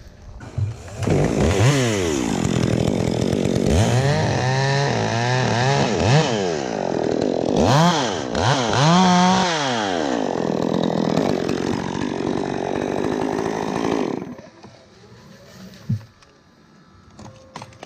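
Chainsaw cutting through cypress wood, its pitch rising and falling several times as the throttle is worked, then cutting off about fourteen seconds in. A single sharp knock follows a couple of seconds later.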